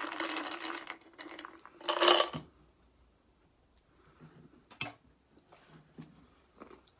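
Small items handled on a tabletop: a rustling clatter with light clinks for about a second, a louder rattle about two seconds in, then a few faint clicks.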